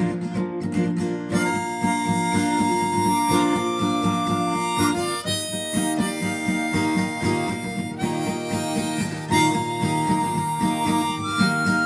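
Harmonica played over acoustic guitar in an instrumental break between sung verses; the harmonica comes in about a second in with long held notes.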